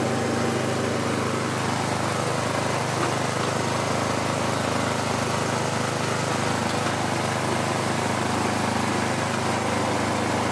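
Small engine driving a meat and sambal grinder, running steadily with an even hum while a chili and peanut mixture is fed in and ground.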